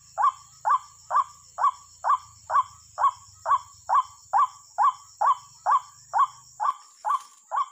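White-breasted waterhen call: a short note that rises then falls, repeated evenly about twice a second, over a faint steady high-pitched hiss.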